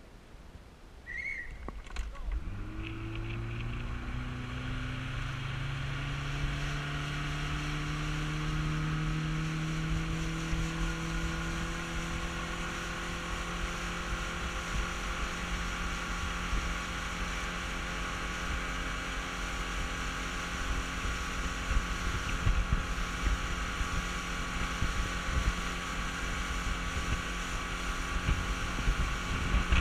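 A small motorboat's engine starting about two seconds in, its pitch climbing as it speeds up over the next several seconds, then running steadily under way.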